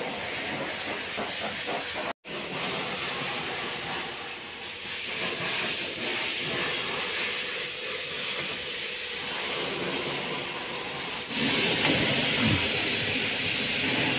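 Steady hissing noise, broken by a brief dropout about two seconds in and louder from about eleven seconds in.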